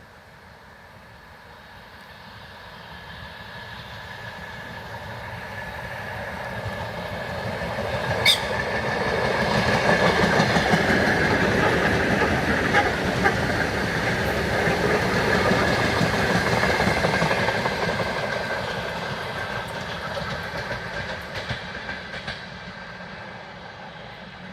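ER9M electric multiple-unit train passing by: it builds up, runs past with wheels clattering over the rail joints and a steady high whine, then fades away. A single sharp click sounds about a third of the way in.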